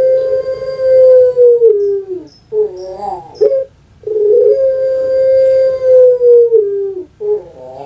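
Puter pelung dove (Barbary dove, Streptopelia risoria) calling its long coo. It gives two long held notes, each about three seconds and dipping in pitch at the end, and each followed by a short wavering rolling coo, the second of these near the end.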